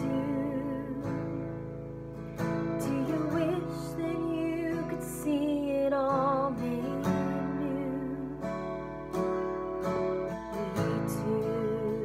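A woman singing a worship song to her own strummed acoustic guitar, her voice wavering in vibrato on the held notes.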